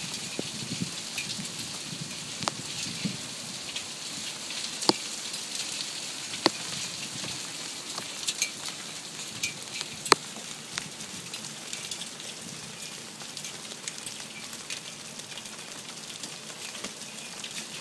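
Pea-sized hail pattering on a roof patio: a steady hiss of countless small stones, with sharp clicks of single hailstones and a few louder strikes scattered through.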